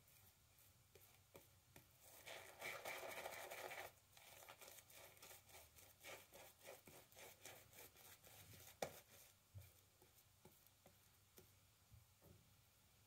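Faint wet-shaving sounds: a short louder swishing stretch about two seconds in, then a run of quick, crackly scrapes and a single sharp click a little before the nine-second mark.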